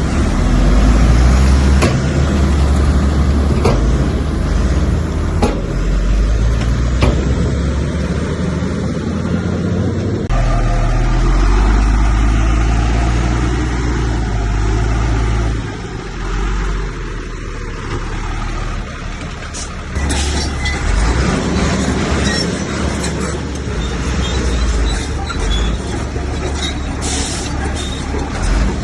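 Heavy diesel earthmoving machinery, bulldozer and dump trucks, running under load, with a few sharp knocks and clanks in the first half.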